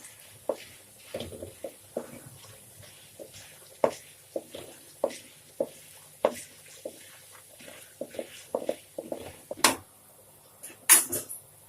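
Whole spices, peppercorns and cumin seeds, crackling and sputtering in hot sesame oil: irregular pops a few times a second, with two louder, sharper pops near the end.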